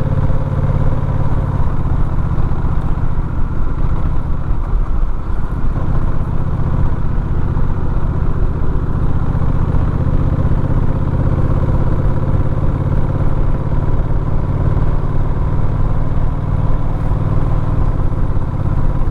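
Motorcycle engine running steadily while riding up a winding road, with a brief dip in the engine note about five seconds in.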